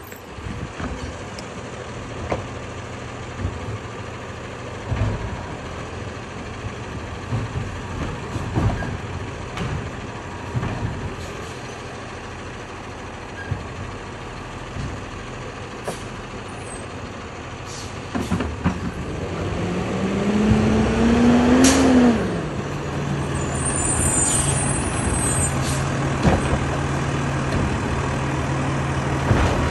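Automated side-loader garbage truck's diesel engine running with scattered knocks. About two-thirds of the way in the engine climbs in pitch for a few seconds as the truck pulls up, drops off, then holds a higher steady speed while the hydraulic arm begins lifting a wheeled recycling cart near the end.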